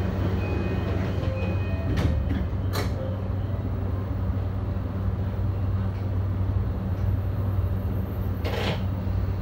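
Cab of a JR Yamanote Line electric commuter train standing still: a steady low hum, with a couple of clicks two to three seconds in and a short hiss near the end.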